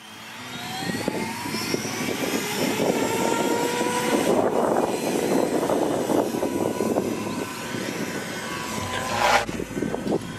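JR Forza 450 RC helicopter with its motor and rotor whine rising over the first couple of seconds as it spools up, then holding at a steady pitch over the rush of the rotor blades. A brief whoosh comes near the end.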